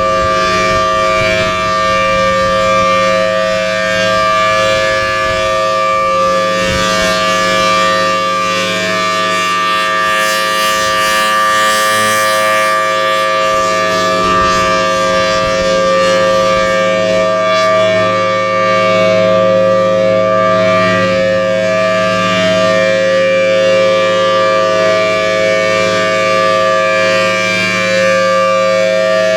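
Federal Signal Thunderbolt 1000T outdoor warning siren sounding a steady alert tone for a tornado drill test. It holds two close pitches together as one loud wail, with no rise or fall in pitch and only slight swells in loudness.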